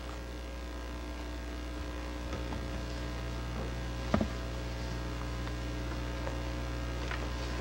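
Steady electrical mains hum, several low steady tones at once, with faint hiss. A single short tap about four seconds in.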